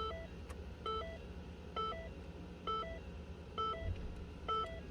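Ford Escape's interior warning chime: a short two-note electronic beep repeating about once every second, six times. A low steady hum runs underneath.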